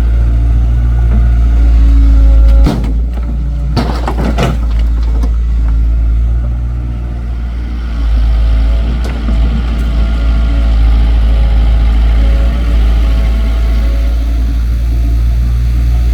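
Excavator's diesel engine running steadily, its note dropping suddenly about three seconds in. A few sharp metallic clanks follow over the next second and a half.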